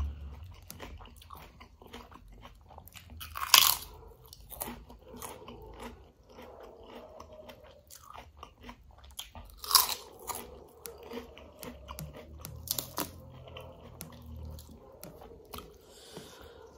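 Close-miked eating of a crisp papad: loud crunching bites about three and a half seconds in and again near ten seconds, a smaller crunch a little later, and chewing with small crunches and mouth clicks between.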